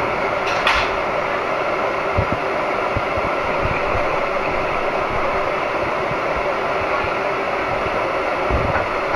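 Steady running noise of a subway train, heard from inside the car, with a short sharp click under a second in.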